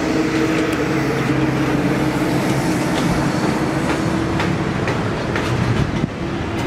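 A vehicle towing a twin-axle steel-mesh trailer as it moves off. A steady engine drone runs under scattered clanks and rattles from the trailer.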